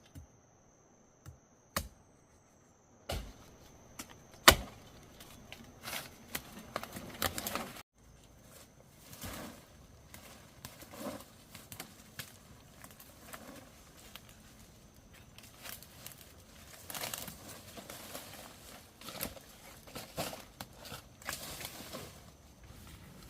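Sharp knocks and scattered rustling and crackling of soil, roots and dry vegetation while a wild tuber is dug out by hand, the loudest knock about four and a half seconds in. A faint, steady, high-pitched insect tone sounds underneath until about two-thirds of the way through.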